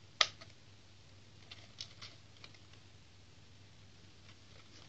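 A sharp plastic click of an Eachine E5C transmitter's power switch being flicked, followed by a few light clicks and taps as the plastic case is handled and turned over. The switch is being worked on a transmitter that will not power on.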